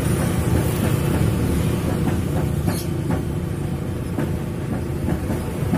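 Steady low engine rumble of motor vehicles on a street, with scattered light knocks and rattles.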